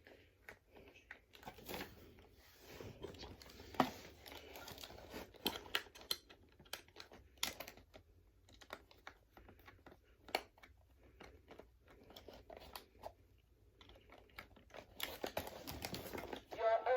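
Irregular small clicks, taps and crinkling from handling a plastic toy while its battery covers are fitted back on, with one sharper click about four seconds in. Right at the end the frog toy starts playing its song through its small speaker.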